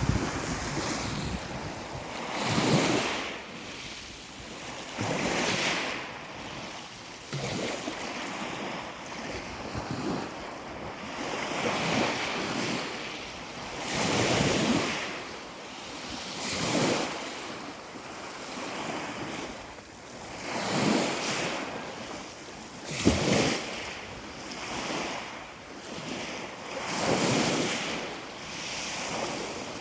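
Sea waves breaking and washing on the shore, swelling and falling back every two to three seconds.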